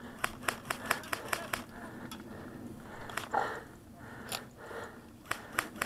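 Airsoft guns firing: a quick string of sharp pops at about four a second, then scattered single shots.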